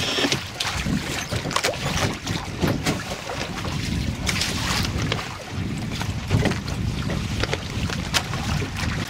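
Wind buffeting the microphone over the rush of water along the hull of a boat under sail, with irregular small splashes and knocks.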